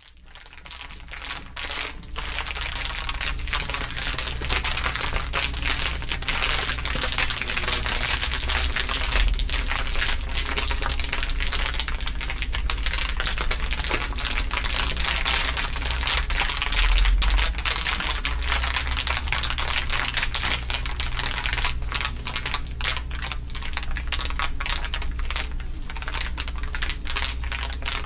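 Layered ASMR crinkling, a dense continuous crackle of many overlapping fine crinkles, fading in over the first two seconds. A steady low hum runs underneath.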